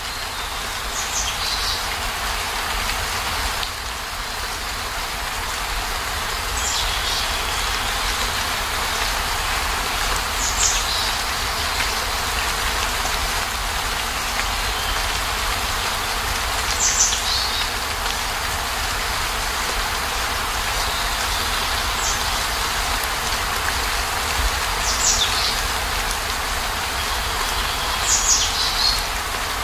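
Steady heavy rain, an even hiss of falling water with a low rumble underneath. Short, high chirps cut through it every few seconds.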